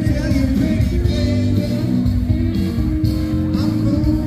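Rock and roll music with guitar and singing.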